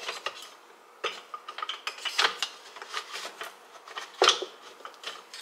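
Wooden spoons, spatulas and a wooden rolling pin knocking and rubbing against one another as they are pushed into a clay utensil crock: a string of irregular light knocks, the loudest a little after four seconds.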